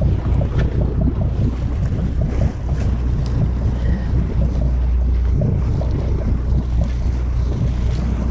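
Steady low drone of a sportfishing boat's engine, with wind buffeting the microphone and sea water washing along the hull.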